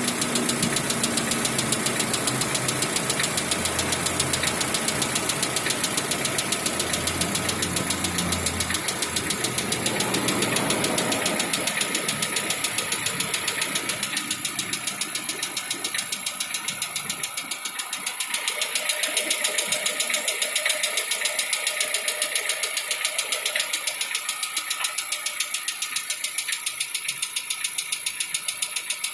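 Lada Vesta 1.6-litre four-cylinder engine idling cold with a fast, even ticking knock. The owner puts the cold knock down to the hydraulic valve lifters and to piston slap, and says it goes away once the engine warms up.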